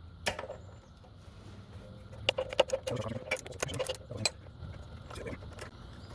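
Metal hand tools and parts clicking and clinking against each other on the motorcycle's rear wheel hardware, a quick cluster of taps in the middle, some with a brief metallic ring.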